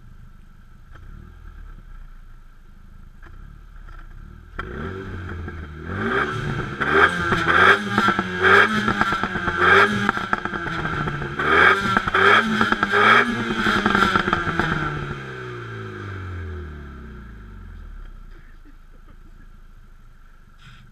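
Renault Mégane RS Mk2's turbocharged four-cylinder through a Ligne Devil aftermarket exhaust, heard close at its twin centre tailpipes. It idles, rises about four seconds in, then goes through a run of quick throttle blips with sharp cracks, and the revs fall back to idle for the last few seconds.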